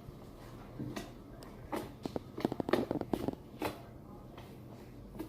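Fluffy slime being mixed and squished, a quick run of small sticky clicks and pops about two seconds in.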